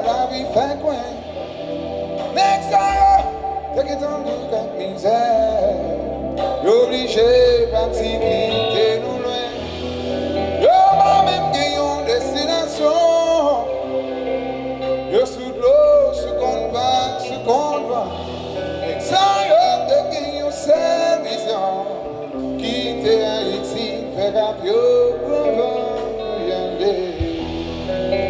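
Live band music with a male voice singing a melody over guitar and steady accompaniment.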